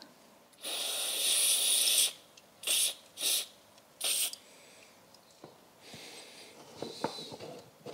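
Aerosol spray can fired through its thin extension straw into the bore of a brake master cylinder. There is one long hiss of about a second and a half, then three short spurts, then a few faint taps near the end.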